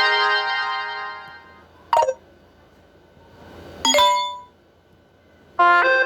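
Samsung Galaxy notification tones played one after another: a bright chime dies away, then a short blip about two seconds in, a ringing ding about four seconds in, and a quick run of chime notes near the end.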